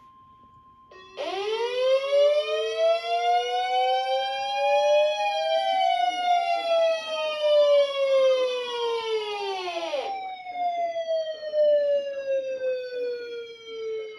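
Siren wailing, starting abruptly about a second in, with two pitches that slide up and down and cross each other. From about ten seconds in it winds down, one tone falling slowly.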